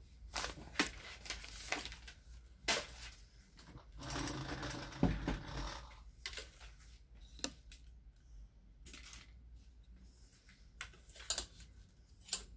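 Onn Focus tripod being handled: scattered clicks and knocks from its pan head and legs, with a scraping rustle and a thump about five seconds in as the legs are spread. A few sharp snaps near the end fit the leg flip-locks being worked.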